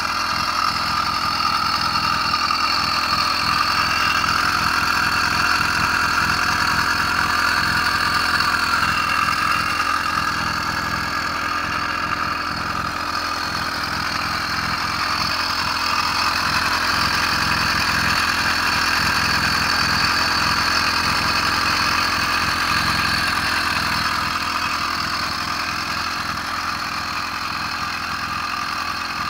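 80cc air-cooled two-stroke bicycle engine kit idling, its speed wavering slightly; the engine is new and still being run in.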